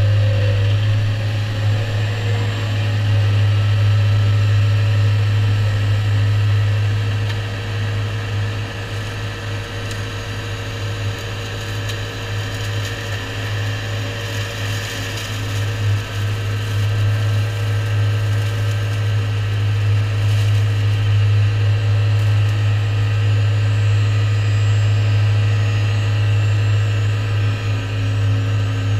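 A New Holland tractor's engine and the hydraulically driven flail head of a Shelbourne Reynolds arm-mounted hedge cutter run steadily while cutting ditch-bank grass. There is a constant low drone with a steady whine above it, easing slightly for several seconds near the middle.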